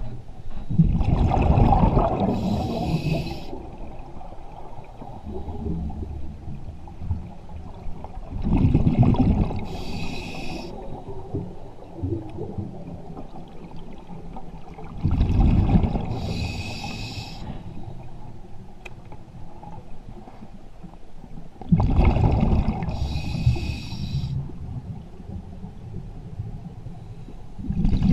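A scuba diver breathing through a regulator underwater, slow and regular: each breath is a low rumble of exhaled bubbles followed by a short high hiss of the regulator on the inhale, four breaths about seven seconds apart, with the next beginning at the very end.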